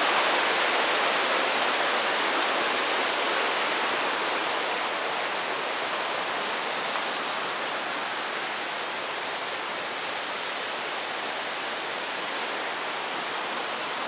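Creek water rushing, a steady hiss of running water that slowly grows quieter.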